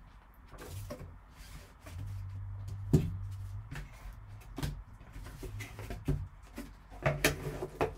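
Cardboard card box and its foam insert being handled by gloved hands: the lid lifted off and the foam pulled out, with scattered taps and knocks, a sharper knock about three seconds in and a cluster of knocks near the end.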